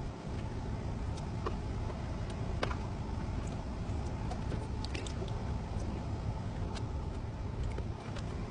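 Scattered small clicks and taps from meter test probes and leads being handled at the unit's electrical terminals, over a steady low rumble.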